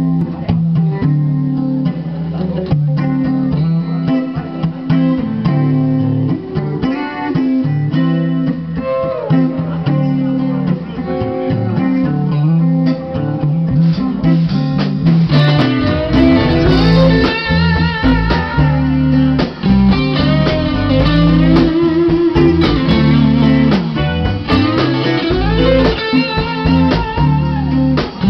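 Live rock band playing with electric guitars, bass and drums. The band gets louder and fuller about halfway through as the low end comes in strongly.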